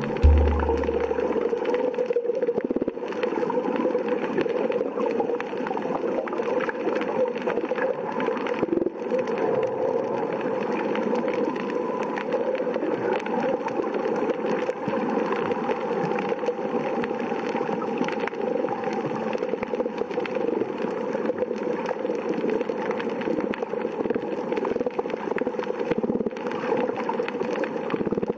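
Steady underwater gurgling and bubbling, heard at the camera among a school of goatfish, which the filmmaker credits as the sound made by the fish.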